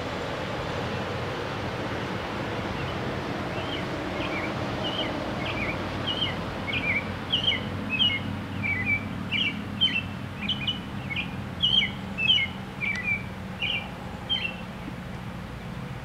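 American robin singing: a run of short, high notes in quick phrases that starts about three seconds in and grows louder, then stops near the end. A steady low rumble runs underneath.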